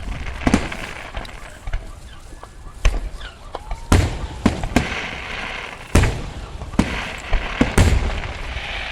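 Aerial fireworks going off: a sharp bang with a low boom roughly every second, some close together, and bursts of crackle between them around the middle and near the end.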